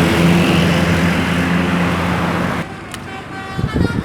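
A bus engine runs loud and close amid road traffic noise, with a steady low hum. It cuts off suddenly about two and a half seconds in, leaving quieter roadside sound and a few knocks.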